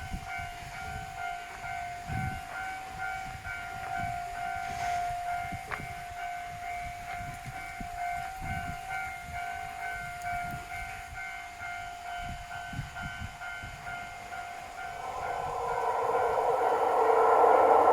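Railway level-crossing warning bell ringing over and over with a steady pulsing tone. About fifteen seconds in, a train's noise swells and grows louder as it reaches the crossing.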